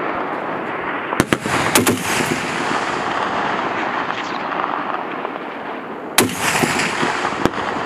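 M2 Browning .50 caliber heavy machine gun firing: short bursts of a few shots about a second in, then single heavy shots about six seconds in and near the end, over a steady background of range noise.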